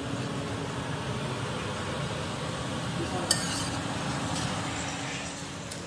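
Ground meat sizzling in a stainless steel skillet as it is stirred with a utensil, with one sharp clink of the utensil against the pan about three seconds in.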